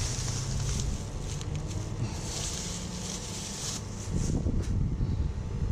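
Low wind rumble on the microphone, with two longer stretches of hissing and a few small clicks or scrapes from handling.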